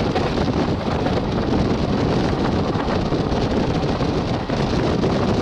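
Steady rush of wind across the microphone over the rumble of a moving passenger train's coach on the track.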